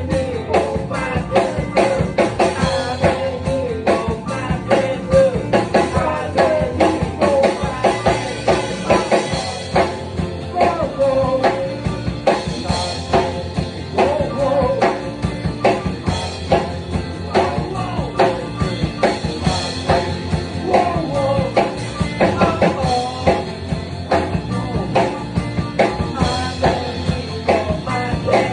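Live rock band playing, with a drum kit keeping a steady beat under the melody.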